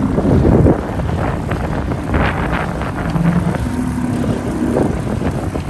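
A Suzuki 2.5 HP single-cylinder four-stroke outboard motor running steadily and pushing a square-back canoe along. Wind gusts buffet the microphone near the start and again about two seconds in.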